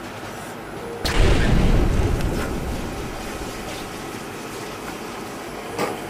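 A sudden deep boom about a second in, fading away over about two seconds: a dramatic impact sound effect marking the diner's surprised reaction to the food. A short knock comes near the end over the steady background of the eatery.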